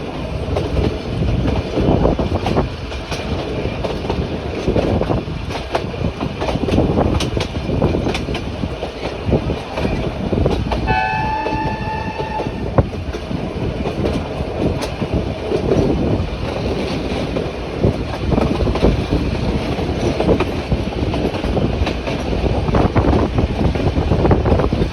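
Nilgiri Mountain Railway toy train running, its wheels and coaches making a continuous rumbling, rattling noise. About halfway through, the locomotive's horn sounds once for about two seconds.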